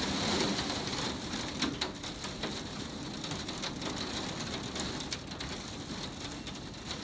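Heavy storm rain and hail pelting a window pane: a dense steady hiss with many scattered sharp ticks of hailstones and drops striking the glass.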